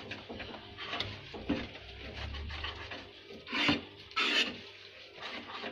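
Spoon or spatula scraping and stirring a thick besan and sugar-syrup mixture in a pan as hot ghee is worked in, with a couple of louder scrapes a little past halfway through.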